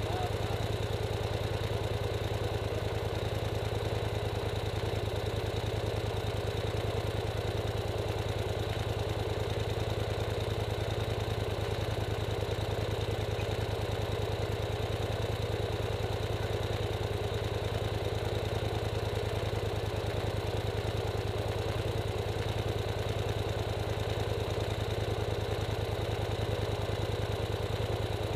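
Polaris 850 XP ATV's twin-cylinder engine idling steadily, heard from the vehicle's own rack.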